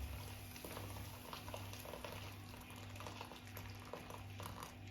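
Faint bubbling and crackling of a pot of maize-meal porridge (pap) and hot water heating on the stove, many small irregular pops, over a low steady hum.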